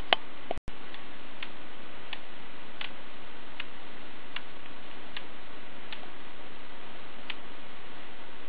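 Sharp single clicks from a Canon DSLR's controls, about one every three-quarters of a second, as it is stepped from image to image in playback, over a steady hiss. The sound cuts out for an instant about half a second in.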